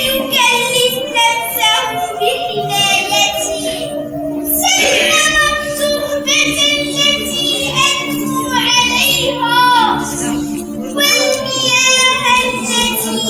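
Children singing a melodic song over steady musical accompaniment with held notes.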